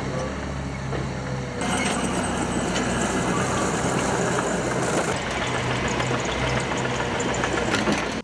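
Heavy diesel machinery running steadily with a constant hiss, its steady low engine hum underneath; the hiss gets louder and brighter at a cut about 1.6 s in.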